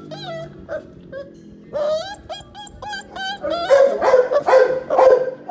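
Pitbull puppy whining and yelping in short high cries, scattered at first, then coming fast and loudest over the last two seconds.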